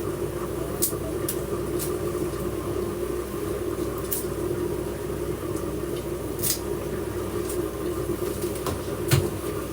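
A steady droning hum, with a few sharp light clicks scattered through it.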